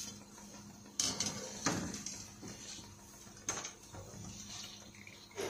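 Wire-mesh spider strainer knocking and scraping against a metal kadai as fried murukku is lifted out of hot oil, with three sharp clinks about one, two and three and a half seconds in. Under it is a faint steady sizzle: the oil's bubbling has died down, the sign that the murukku is fried through and ready to take out.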